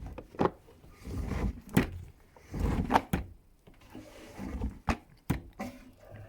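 Several sharp clicks and knocks from a washing machine, with short swells of rustling, shuffling noise between them.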